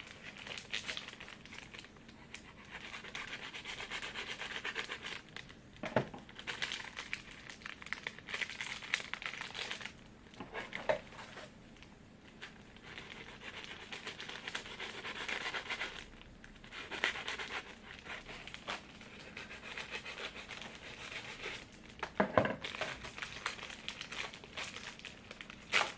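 Plastic snack pack of biscuit sticks crinkling in stretches as it is handled and worked open, with a few sharp clicks, three in all.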